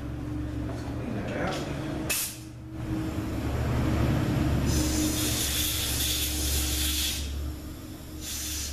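Compressed-air blow gun hissing in blasts against an aluminium 45RFE transmission valve body, clearing it of drilling chips: a short blast about two seconds in, a longer one of about two seconds midway, and another short one near the end.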